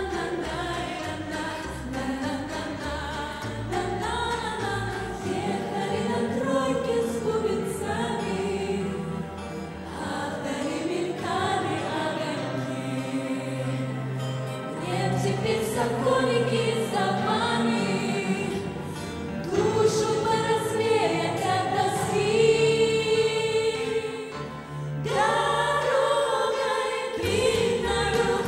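A girls' vocal group of four sings a pop song in harmony into handheld microphones over an instrumental backing with a steady beat and bass line.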